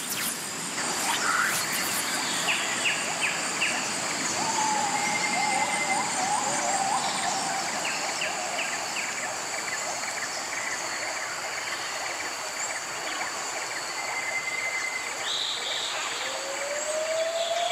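Tropical forest ambience: a steady high-pitched insect drone with an even hiss beneath it. Short whistled bird calls come now and then, and rising calls come near the end.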